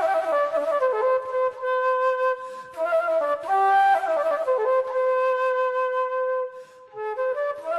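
A solo flute plays a melody of long held notes with quick ornaments and slides between them, with no singing. There is a short break near the end.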